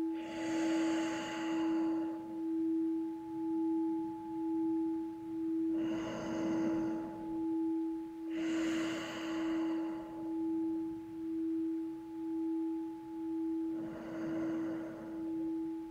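A singing bowl ringing on one steady tone that wavers in loudness a little faster than once a second. Over it, four slow, audible breaths through the nose, each lasting about a second and a half.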